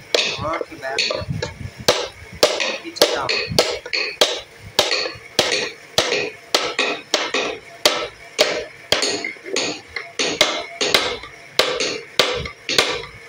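Mallet tapping a small carving chisel into the wall of a wooden box in a steady rhythm of about two strikes a second, each a sharp knock with a brief ring, as the relief design is cut.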